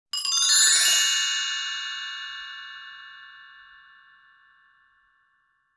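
A bright, shimmering chime struck once, ringing with many high tones and then fading out slowly over about four seconds.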